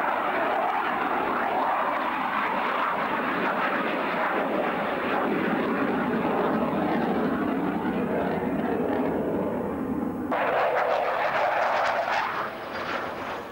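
Hawker Hunter jet flying overhead, its engine a steady, dense rushing noise. About ten seconds in the sound changes abruptly to a brighter, higher rush at an edit in the recording, then drops away near the end.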